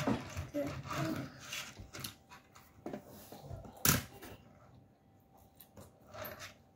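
Someone eating noodles with wooden chopsticks from a ceramic bowl: small clicks and clatter, then a loud slurp about four seconds in.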